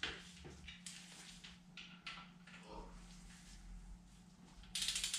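A 3/8-inch click-type torque wrench works the connecting-rod cap bolts of a small-block Chevy 350 on the 20 ft-lb pass. There are a few faint ticks of the tool being handled, then a short ratcheting rattle near the end as the wrench is swung back on the bolt.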